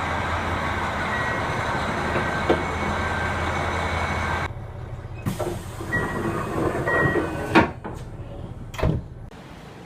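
Keikyu commuter train at a platform. Steady train noise with a low hum cuts off suddenly about four and a half seconds in. Knocks and a few faint short high tones follow, then two heavy thuds near the end as the sliding passenger doors close.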